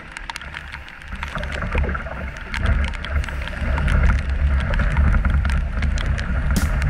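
Whitewater rushing and slapping against the hull of a 17-foot Prospector canoe as it runs into a rapid, with a deep churning rumble that grows louder about a second in and again about two and a half seconds in. Many small ticks sound over the rush.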